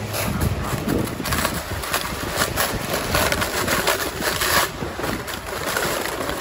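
Sliding fast down a thin, grassy snow cover: a steady rough scraping hiss of snow under the ride, broken by many short bumps and crunches, with wind buffeting the microphone.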